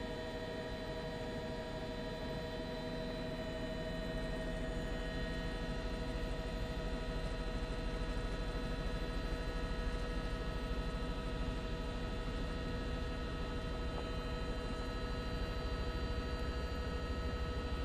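Steady cabin drone of a news helicopter in flight: a low rumble under several constant whining tones, growing a little louder about four seconds in.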